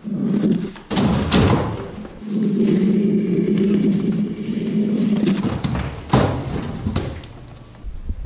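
A long wooden board being slid and dragged over a timber beam, with a steady low scraping drone for a few seconds and sharp knocks before and after it.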